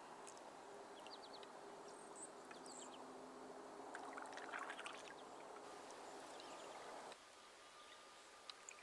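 Faint water sounds of a wooden canoe paddle dipping and stroking through calm river water, with a few short high chirps over it. The sound drops to a quieter background about seven seconds in.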